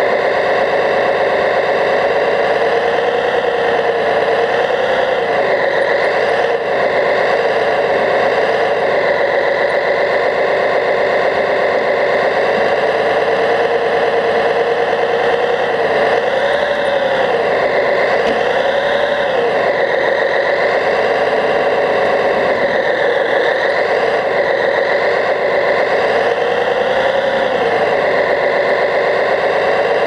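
Running sound of a radio-controlled Liebherr 741 bulldozer model on the move: a steady, engine-like drone that dips and rises in pitch several times as it works.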